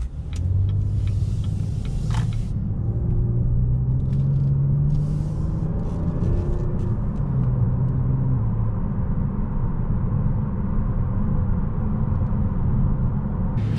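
A car's engine and road rumble while driving, with low engine tones that rise and fall in pitch as it goes.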